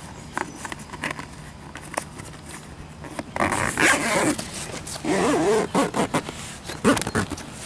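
Zipper on a Jeep Wrangler TJ Bestop soft top's rear window being pulled along its track in jerky spurts, loudest in two rasping stretches around the middle, with a few light clicks in the first two seconds.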